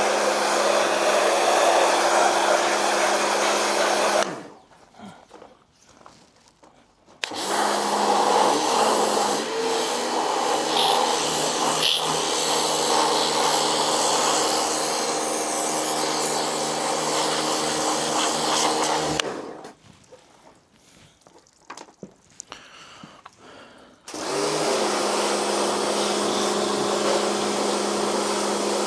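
Pressure washer (jet wash) running, a steady motor hum under the hiss of the water jet blasting lint out of a tumble dryer condenser box. It runs in three bursts, stopping twice for a few seconds.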